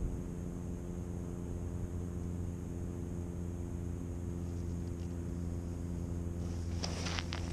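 Steady low mechanical drone, like a distant engine running, with a short burst of crunching, scraping clicks near the end.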